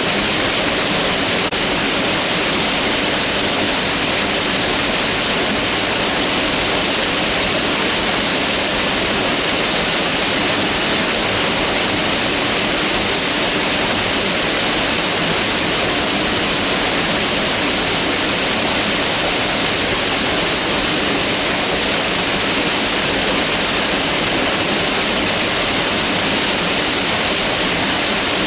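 Mountain river rushing steadily over rocks, an even, unbroken wash of water noise.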